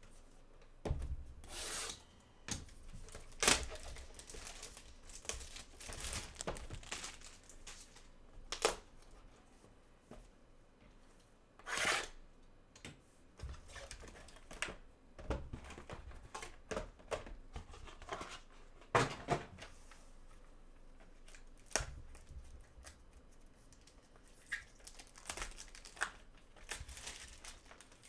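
A sealed trading-card box being unwrapped and opened by hand: packaging tearing and crinkling, and cardboard and cards rubbing and scraping in irregular bursts.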